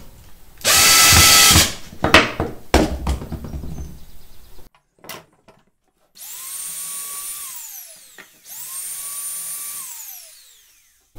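Cordless drill running into wood in a loud burst of about a second, followed by a few sharp clicks. Later a power tool's motor spins up twice, each time to a steady whine that then winds down.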